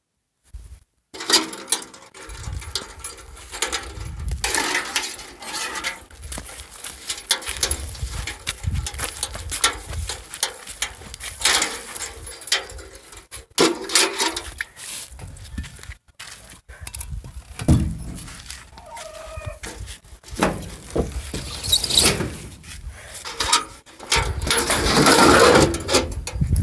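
Chickens clucking at intervals, over a low rumble on the phone's microphone.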